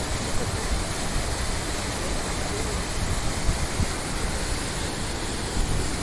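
Tirathgarh waterfall's water pouring over rock ledges into a pool: a steady rushing noise.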